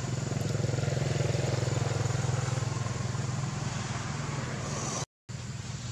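An engine running with a steady low hum, a little louder in the first couple of seconds. The sound drops out completely for a moment about five seconds in.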